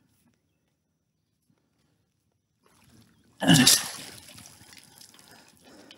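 Near silence, then about three and a half seconds in a sudden loud splash from a hooked trout at the water's surface, fading out over about a second.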